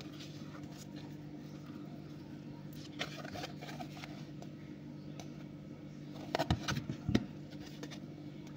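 Handling noise of a printed cardboard display card being picked up and turned over: light scrapes and rustles about three seconds in, then a few louder knocks and taps near the end, over a steady low hum.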